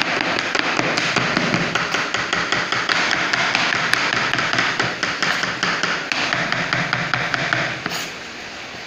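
A kitchen knife chopping gourd on a plastic cutting board: a quick, even run of sharp knife strokes hitting the board, stopping about eight seconds in.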